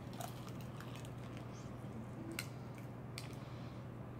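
Close-up chewing of crispy fried chicken: a few short crunches and wet mouth clicks, spaced irregularly, over a steady low hum.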